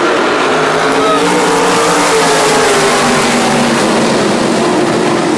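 Several RaceSaver sprint cars' 305 small-block V8 engines running together around a dirt oval. Their pitch drifts slowly up and down.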